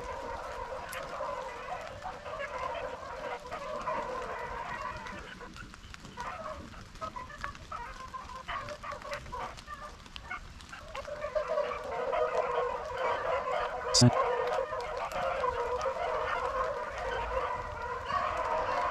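A pack of beagles baying while running a rabbit: a chorus of many overlapping voices that thins for several seconds in the middle, then swells again. A single sharp click about 14 seconds in.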